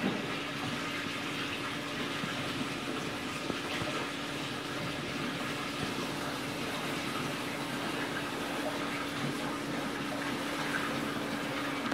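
Steady rush of water circulating through a live-fish holding tank, with a constant low hum, typical of the tank's circulation pump.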